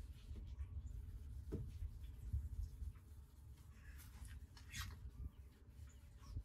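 Faint scratchy strokes of 1500-grit wet/dry sandpaper rubbing the boat's oxidized finish, clearest in the second half, over a low rumble. This grit is taking out the scratches left by the 800.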